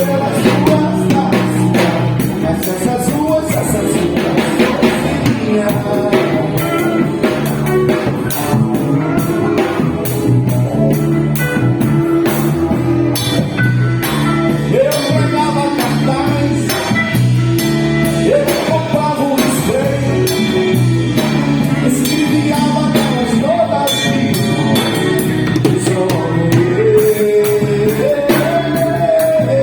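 A band playing a song with drum kit, bass, electric guitar and keyboards, with singing at times.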